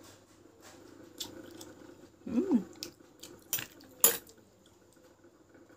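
Eating sounds: a metal spoon clicking a few times against a paper food cup, with a sharp click about four seconds in the loudest, and a short hummed sound about two and a half seconds in that rises and falls in pitch.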